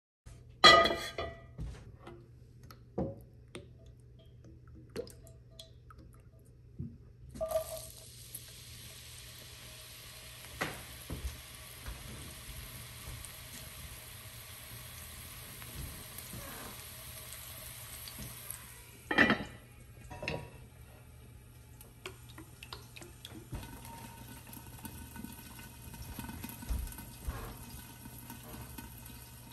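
Diced red onion sizzling in oil in a pan for about ten seconds, starting suddenly with a knock. Clanks of cookware on the gas hob come before and after, the loudest near the start and about two-thirds of the way through, over a low steady hum.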